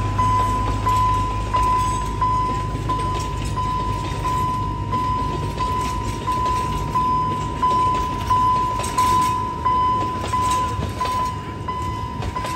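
Level-crossing warning bell dinging steadily, about three strikes every two seconds, as an Alishan Forest Railway train rolls past. The DL48 diesel locomotive's engine rumble fades within the first couple of seconds, then the passenger cars roll by on the rails with scattered clicks.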